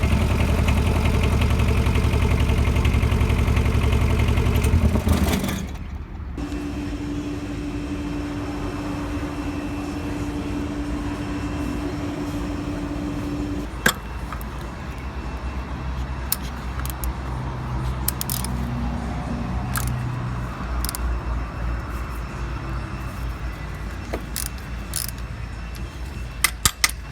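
Kubota combine's diesel engine idling, then shut off about five and a half seconds in. Afterwards a steady hum and scattered sharp clicks.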